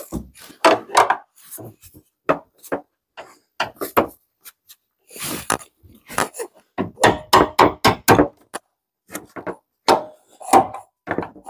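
Hammer tapping on a tool held under the lower door hinge pin of a Chevy S10, knocking the old pin up out of the hinge. The metal strikes come irregularly, with a quicker run of taps about seven seconds in.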